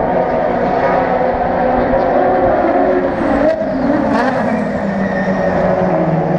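Race car engines running steadily in the pit lane, with a sharp knock about three and a half seconds in and a sweep in pitch like a car going by just after it.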